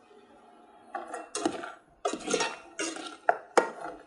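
A slotted metal skimmer clinking and scraping against the side of a metal pot of frying oil as batter-coated peanuts are scooped. The first second is quiet, then about six sharp clatters follow.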